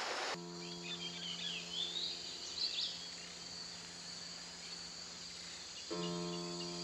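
Outdoor tropical ambience: a steady high insect buzz, with a few bird chirps in the first three seconds. Under it a held low note runs throughout and gets louder about six seconds in.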